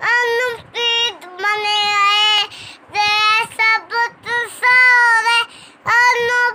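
A young boy singing a naat unaccompanied, a high child's voice in held, wavering phrases with brief pauses for breath between them.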